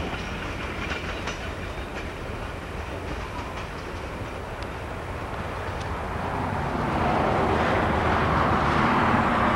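Passenger cars of a steam excursion train rolling away over jointed track, the wheels clicking over the rail joints. About seven seconds in, a louder rushing noise swells up and holds to the end.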